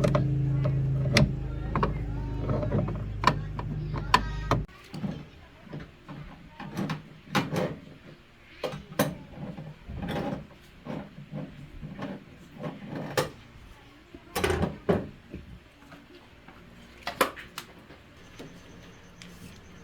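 A machine's motor running with a steady hum, cutting off abruptly about four and a half seconds in, followed by scattered metal clanks and knocks.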